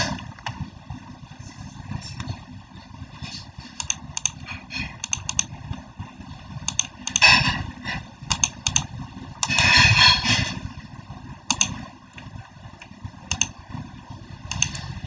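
Keys being typed: irregular single clicks and short runs of clatter over a low background rumble.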